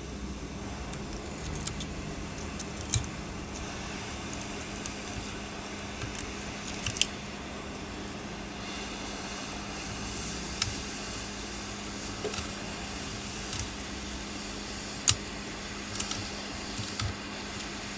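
Heat gun blowing steadily with a constant hum, while tweezers or a metal tool make scattered sharp clicks and taps against the cracked back glass of an iPhone 11.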